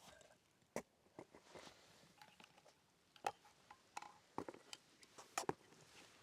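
Scattered sharp clicks and light knocks, some with a short ring, as the freshly painted stove hatches and chimney-sweep covers are handled and fitted back into place on a wood-burning bread stove.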